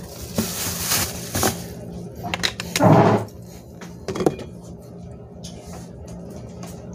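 Plastic bag crinkling, then one short loud sound about three seconds in, followed by a few light knocks and clicks, over a steady low hum.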